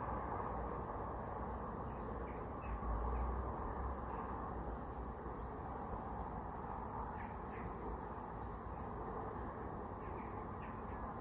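Short bird calls now and then, some in quick pairs, over a steady rushing background noise, with a brief low rumble about three seconds in.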